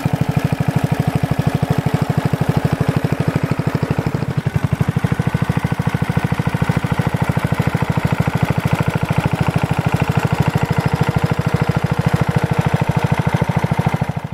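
Cast-iron single-cylinder Briggs & Stratton Model 14 engine on a Simplicity VA walk-behind tractor, running steadily with an even firing beat as it pulls the cultivator through soil.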